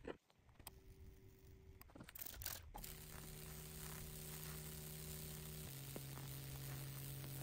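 Faint steady electrical hum with a hissing, sizzling crackle, typical of a high-voltage fractal (Lichtenberg) wood-burning rig at work. A few scattered clicks come first, and the hum starts about three seconds in and drops slightly in pitch about halfway through.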